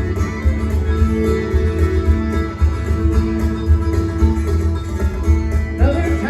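Bluegrass band playing live, with acoustic guitar and banjo picking over a steady bass. A voice comes in near the end.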